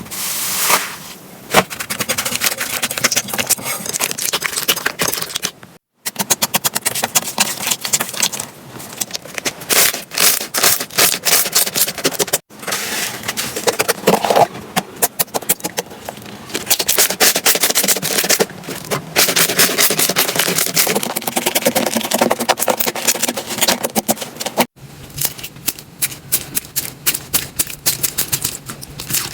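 Slime being squeezed and poked by hand, giving rapid, dense crackling clicks and pops, with three short breaks where clips are cut together.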